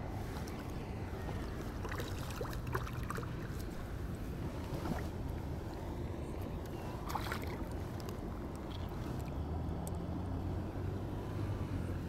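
Steady low wind rumble on the microphone, with a few short splashes as a hooked bass thrashes at the water's surface, around two to three seconds in and again about seven seconds in.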